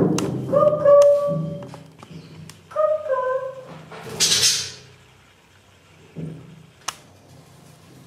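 Soft background music with a few short held notes, a brief hiss about four seconds in and a single click near the end.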